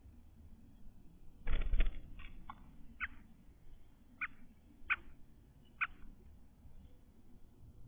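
A brief rustling burst, then about six short, high chirps spaced a second or so apart, from a bird nest where the mother is feeding three-day-old nestlings.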